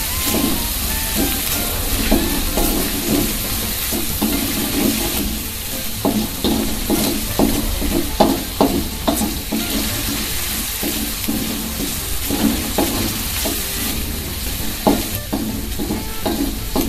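Diced chicken and ground garlic-pepper paste sizzling in oil in an aluminium wok, with a plastic spatula scraping and stirring against the pan in quick, irregular strokes over a steady hiss.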